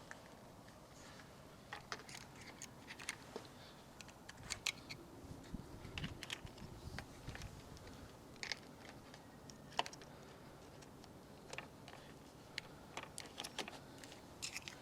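Irregular small clicks and taps of hands working a garage door opener keypad's open plastic housing while swapping its 9-volt battery, the battery being unclipped from its snap connector and a new one fitted.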